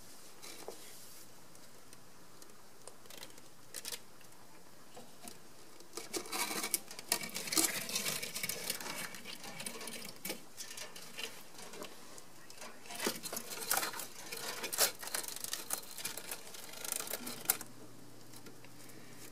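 Two stretches of rapid scratching and pattering, from a bearded dragon chasing a big moth over sand and wood in its terrarium.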